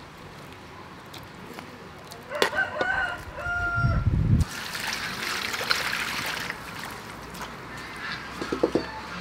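A rooster crows once, about two and a half seconds in. A low thump follows, then a couple of seconds of rushing, hissy noise.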